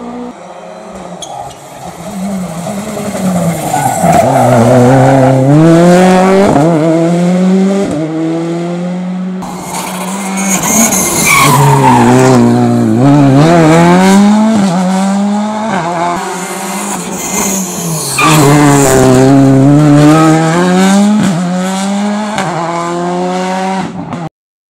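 Rally cars taking a tight tarmac hairpin one after another: each engine revs high, drops as the driver brakes and shifts, then climbs again on the way out, with tyres squealing. Three loud passes; the sound cuts off abruptly near the end.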